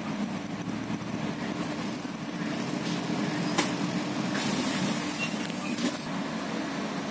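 Steady low drone of a double-decker bus's engine and cabin as it drives along, with a few sharp rattles or clicks, the loudest about three and a half seconds in.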